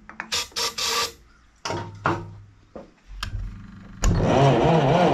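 A few short hissing spurts from an aerosol can sprayed at the engine, then about four seconds in the Hercules ZXB four-cylinder engine of a military Hobart generator suddenly starts and runs loudly, its speed wavering.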